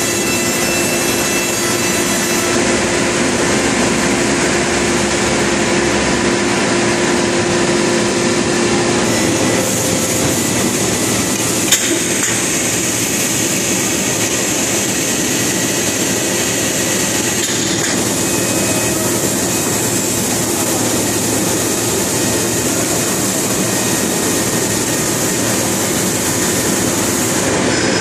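Machinery of a running short-cycle melamine laminating press line: a loud, steady, even industrial noise with a few faint steady tones under it, and a single sharp click about twelve seconds in.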